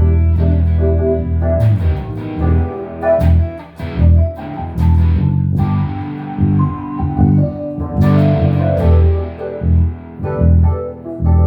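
Instrumental jam: guitar playing plucked notes over a low bass line, with a few sharp percussive hits in the first half.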